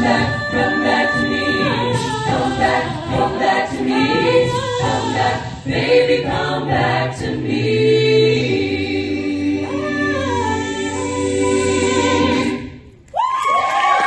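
A cappella vocal group singing the last bars of a doo-wop song in close harmony, with a steady low bass voice under the chords. It ends on a long held final chord that cuts off together. Audience cheering and applause break out right after.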